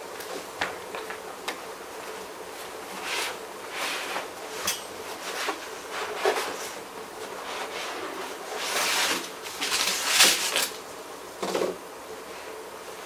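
Packaging and a fabric carrying bag being handled and unwrapped: irregular rustling with scattered light knocks and clicks, the rustling heaviest about nine and ten seconds in.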